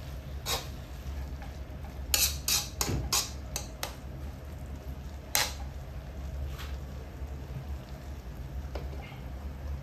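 Metal spatula scraping and clattering against an aluminium wok while stirring minced meat and vegetables, with a quick run of knocks two to four seconds in and one sharp clack a little after five seconds. The food gives a faint sizzle, and a steady low hum runs underneath.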